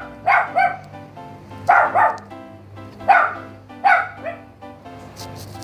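A dog barking in bursts of one or two barks, four times in the first four and a half seconds, over background music with steady held tones.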